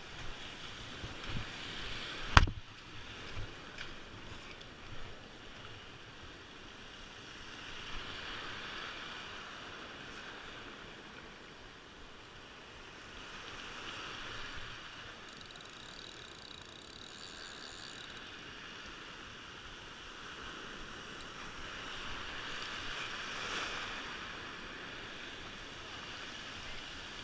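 Surf washing up and back over a pebble shore, swelling and easing every several seconds, with one sharp knock about two seconds in.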